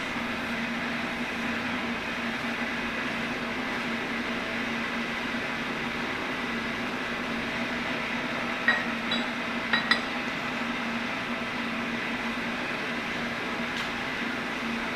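Steady electric motor hum of shop machinery running, with a few light metallic clinks in the middle.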